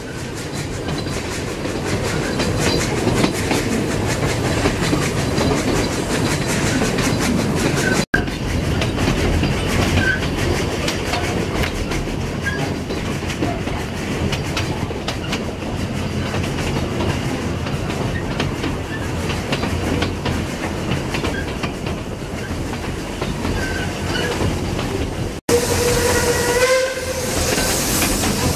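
Narrow-gauge steam train running, with carriage rattle and wheels clicking over the rail joints. About three seconds from the end, the steam whistle sounds once for about a second and a half.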